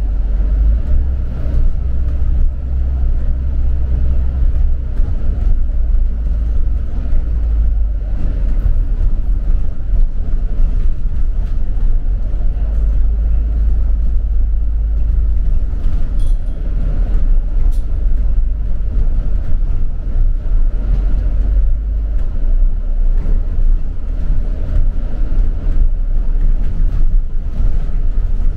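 A London double-decker bus running along the road, heard from on board: a steady low engine drone and road rumble. The engine note shifts a few times as the bus changes speed.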